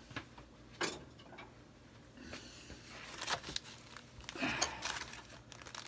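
Scattered light clicks and taps from hands handling a thin cedar strip and brads on a workbench, a little louder about a second in and again around three and four and a half seconds in.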